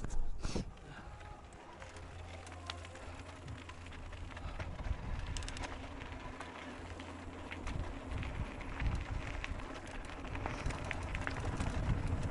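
Mountain bike rolling over a gravel track: tyres crunching on loose stones, with many small clicks and rattles from the bike and a low wind rumble on the microphone. Two sharp knocks come right at the start.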